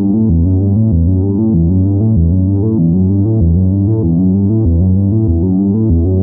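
Behringer Model 15 analog modular synthesizer playing a fast, repeating sequence of low notes, several a second. The tone is dark and muffled, its highs cut off by a mostly closed low-pass filter.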